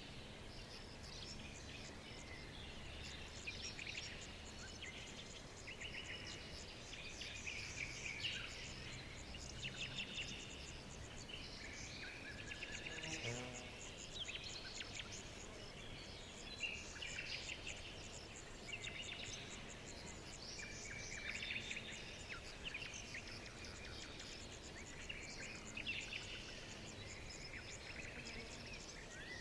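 Many songbirds chirping and singing at once, with fast overlapping trills and chirps and no pause, over a faint low background noise. One lower-pitched call stands out about halfway through.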